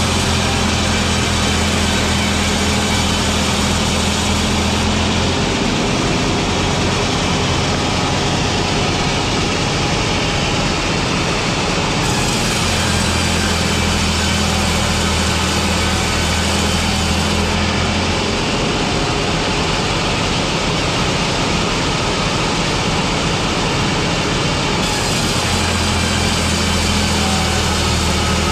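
Loud, steady din of factory machinery running, with a low hum that drops out and returns in stretches of several seconds.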